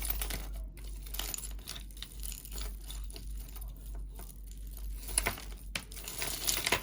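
Tangled strands of beaded jewelry being handled and pulled apart: beads and metal findings clicking and rattling in irregular small clicks, busier near the end.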